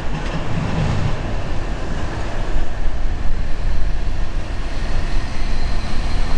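Steady rumble of a long freight train of auto rack cars rolling away past a grade crossing. Near the end a car comes up and drives over the crossing.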